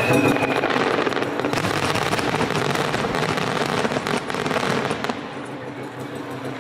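Aerial fireworks crackling: a dense rattle of many small pops as the shells' falling stars go off, dying away about five seconds in.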